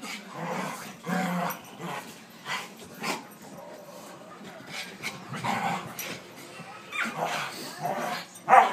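Two dogs growling and barking as they play-fight, in short repeated bursts, the loudest near the end.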